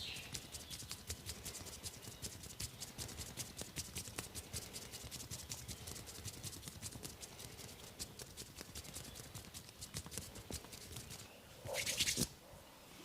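Rapid, even percussive massage taps on a person's body, several strokes a second, with one brief louder burst near the end.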